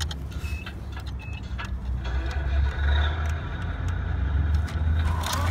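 Bruder toy wheel loader pushed by hand along a plastic low-loader trailer toward its metal ramp. Its big plastic tyres rumble and scrape for the last few seconds, with scattered clicks, over a steady low rumble.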